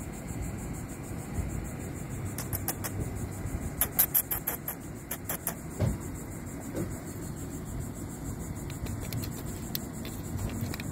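A cat pawing at a charging cable on a cloth truck seat: a run of sharp clicks and scratches, most of them about a third of the way in, over a low steady rumble.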